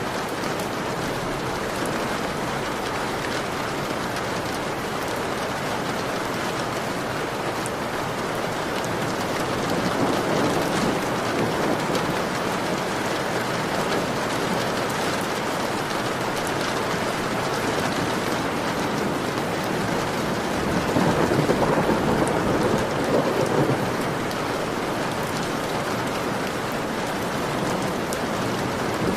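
Heavy rain beating on a window pane, a dense steady hiss that swells louder twice, about a third of the way in and again past two-thirds.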